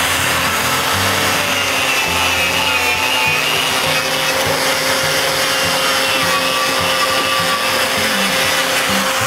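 Angle grinder with a wire wheel brush running steadily, a whine over a harsh scrubbing noise as the wire bristles scour the edge of a wood slab to bring the grain lines and striations back out.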